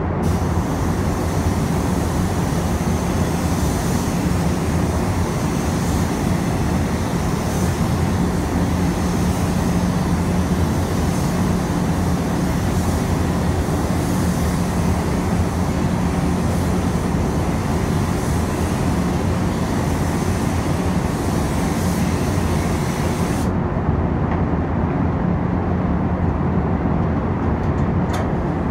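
Gravity-feed paint spray gun hissing steadily as a basecoat correction coat is sprayed, over the steady hum of the spray booth's fans. The hiss cuts off suddenly about five seconds before the end, leaving only the hum.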